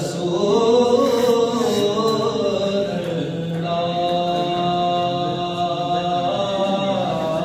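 A man's voice chanting a melodic Islamic recitation, drawing out long held notes that slowly rise and fall.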